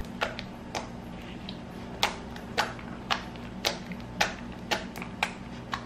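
Fingertips pressing into soft shampoo-and-toothpaste slime, making a string of sharp little clicks, about two a second.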